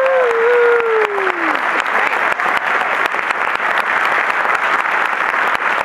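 Audience applauding steadily, a dense patter of many hands clapping. In the first second or so, one voice calls out a brief falling cry over the clapping.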